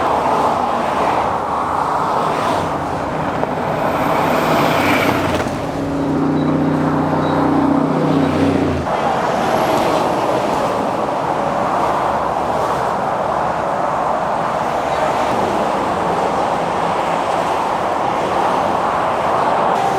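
Steady, loud wash of highway traffic noise from the Florida Turnpike, tyres and engines blending into one continuous roar. From about six to nine seconds in, a single nearer vehicle's engine drones over it as a low hum, then fades.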